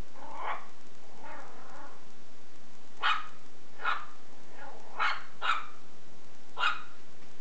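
Shih Tzu puppy giving short, high barks, about half a dozen spread unevenly over several seconds, while it bites and tugs at a belt.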